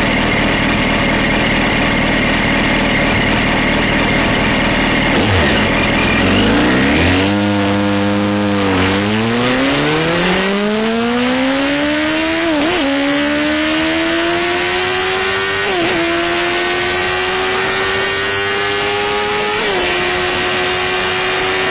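2004 Yamaha R1's inline-four engine under hard acceleration, with heavy wind rush. About a third of the way in the engine note climbs steeply, then dips briefly at three upshifts, each gear rising more slowly than the last.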